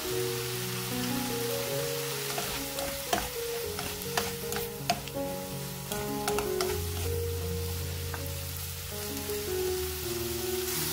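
Julienned bellflower root (doraji) sizzling in oil in a frying pan while it is stirred with a spatula, with a few sharp spatula knocks against the pan around the middle.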